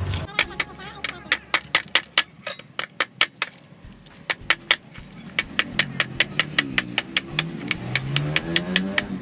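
Serrated kitchen knife chopping a bagged block of ice on a wooden cutting board, breaking it into pieces small enough for an ice crusher: a steady run of sharp chopping strikes, about three a second, quickening slightly in the second half.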